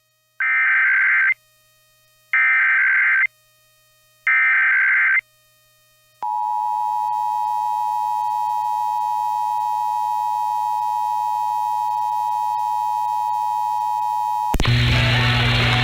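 Emergency Alert System SAME header: three harsh digital data bursts, each about a second long and a second apart. Then the steady EAS two-tone attention signal sounds for about eight seconds, cutting off shortly before the end into noisy broadcast audio.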